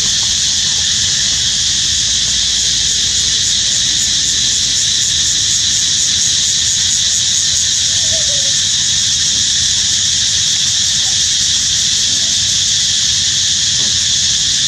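Steady, loud, high-pitched drone of an insect chorus that does not let up, with a couple of faint short squeals, the clearest about eight seconds in.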